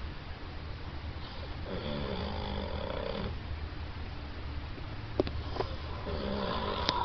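A man snoring in his sleep. One long snore starts about a second in and lasts about two seconds, and another begins near the end. A couple of sharp clicks fall between them, over a steady low hum.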